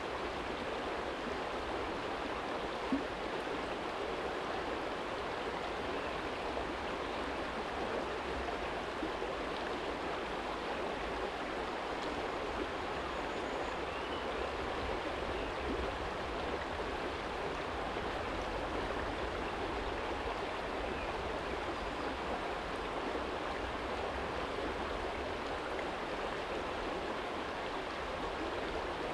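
Small shallow stream flowing over a stony bed, a steady rushing and babbling of water, with a low rumble underneath. A single brief click sounds about three seconds in.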